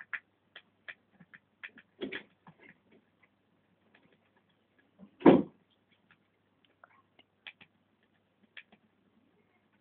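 Baby gerbils gnawing cardboard: irregular small crunching clicks, several a second, with a louder thump about five seconds in.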